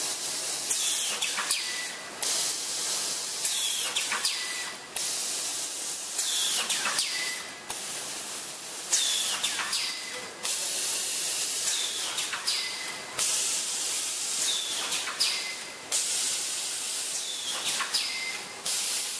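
Automatic bag-making machine running, with its pneumatic cylinders hissing in sharp repeated bursts of air about every two seconds as each cycle fires.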